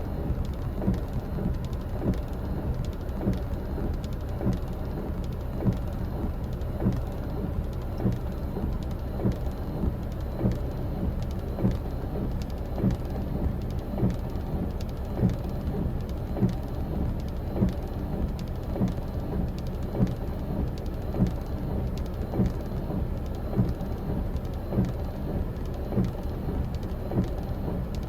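Steady low rush of surf and wind on an open beach, broken by frequent short thumps on the microphone, about one or two a second.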